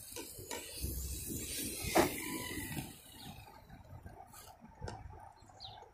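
Redcat Shredder 6S electric RC car driving over grass some way off, with one sharp knock about two seconds in. Its sound fades after about three seconds, as the motor's low-set temperature cutoff stops the car.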